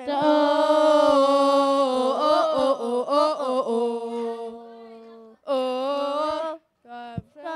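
Young voices singing a gospel song together through a church sound system, holding long sustained notes. The singing fades, pauses briefly and a new phrase starts near the end.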